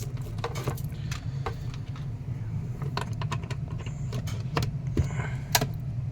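Scattered clicks and rattles of a table fan's power cord being unwound by hand, over a steady low hum from a furnace.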